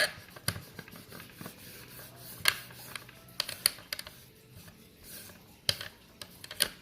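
Irregular clicks, taps and light scratching of a plastic toy part being handled and rubbed clean.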